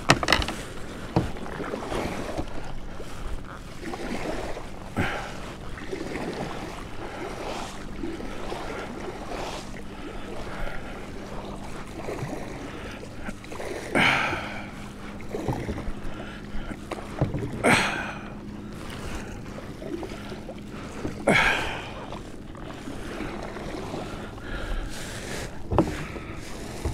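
Kayak paddling: a double-bladed paddle dipping and pulling through the water in repeated strokes. There are small splashes and drips throughout, and three louder splashes in the second half.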